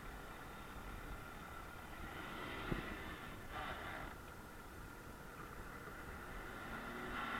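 Nissan Patrol's engine running steadily and faintly, with a single knock nearly three seconds in and a brief hiss about half a second later.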